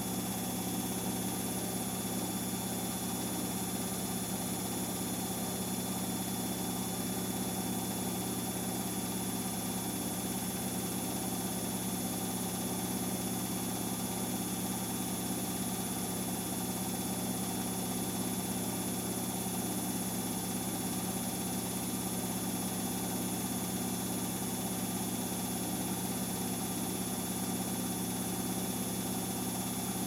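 Samsung Eco Bubble WF70F5E2W2X front-loading washing machine on its final spin, drum held at a steady 1200 rpm. It makes an even hum with a low whine that does not change in pitch.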